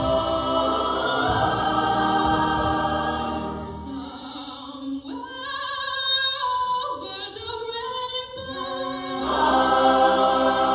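Show choir singing in full harmony. About four seconds in the full sound drops away to a few voices, with one high voice wavering in vibrato on top, and the whole choir comes back in about nine seconds in.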